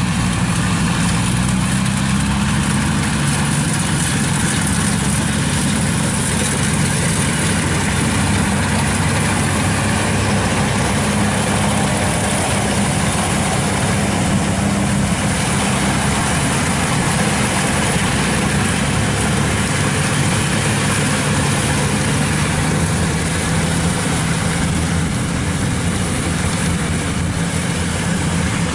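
Kubota DC-95 combine harvester's diesel engine running at a steady, unchanging pitch as the machine harvests rice.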